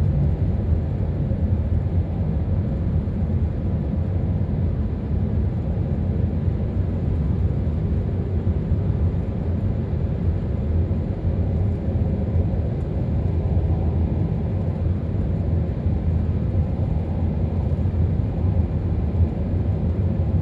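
Steady low rumble of tyre, road and engine noise inside a car's cabin while driving at motorway speed through a tunnel.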